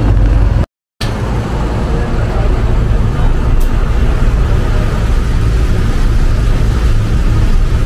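Steady low rumble, like a vehicle engine running, with a brief total dropout just before a second in.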